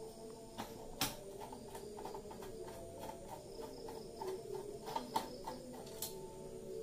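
Scattered light clicks and knocks of hands working on a desktop PC case as it is opened to take out the graphics card, over a faint steady hum.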